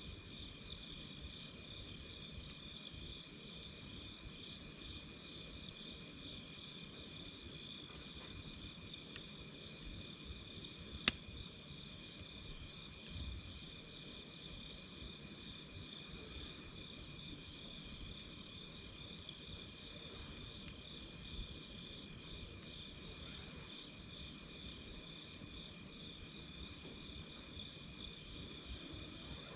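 Campfire ambience: a steady, pulsing high-pitched insect trill over faint low crackling, with one sharp pop from the fire about eleven seconds in.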